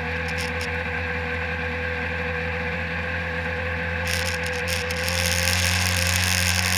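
1997 Sea-Doo SPX personal watercraft's two-stroke engine running steadily under way, with a rushing hiss coming in about four seconds in and the engine a little louder over the last two seconds.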